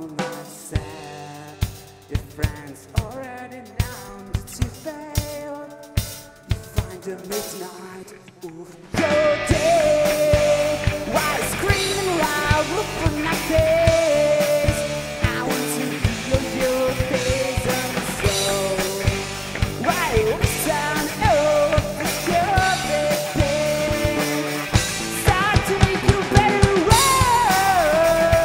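Live rock band playing. For the first nine seconds a quieter passage is carried by steady drum hits under guitar; then the full band comes in loud, with electric guitars, bass and drums, and a melody line bending in pitch above them.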